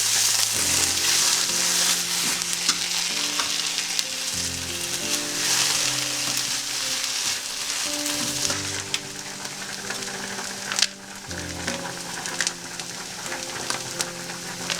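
Food sizzling in a frying pan, with the clicks and scrapes of a utensil stirring it now and then. Soft background music with slow held notes plays underneath.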